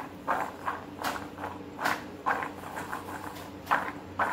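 Boiled chickpeas dusted with cornflour being tossed in a steel bowl to coat them, rattling and swishing against the metal about two to three times a second, once with each shake of the bowl.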